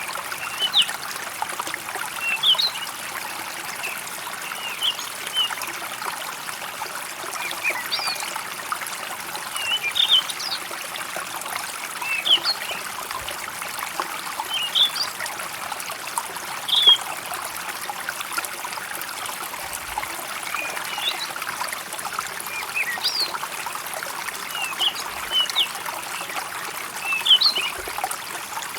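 Water trickling steadily like a small stream, with birds chirping in short, quick calls every second or two.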